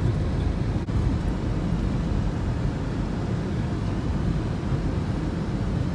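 Steady low rumble of a car driving over packed snow, heard from inside the cabin, with a momentary break about a second in.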